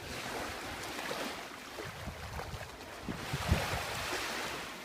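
Sea surf washing onto the beach, with wind on the microphone; the wash swells about three seconds in, along with a short low thump.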